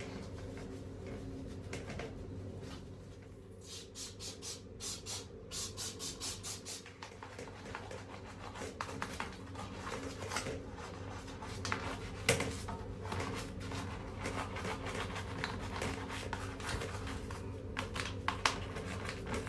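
Rubbing and scraping of a gloved hand and wipe scrubbing a plastic toilet seat and its hinges, in quick back-and-forth strokes (about four a second for a few seconds mid-way), with a sharp click about twelve seconds in. A steady low hum runs underneath.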